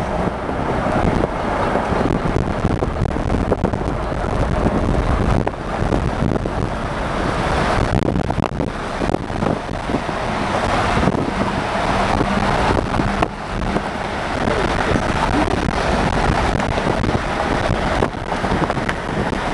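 Steady rushing of storm wind buffeting the microphone, mixed with road traffic noise, with a few brief knocks.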